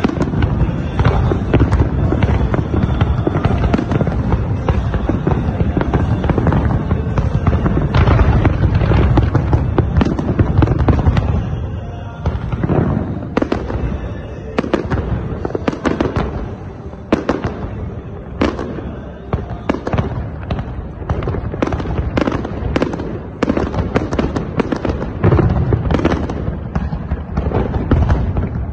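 Fireworks display: a dense barrage of overlapping bangs and rumble for the first dozen seconds, then a run of separate sharp cracks and pops, several a second.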